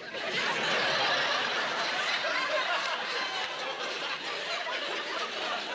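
Sitcom studio audience laughing, starting suddenly, loudest about a second in and slowly tapering off.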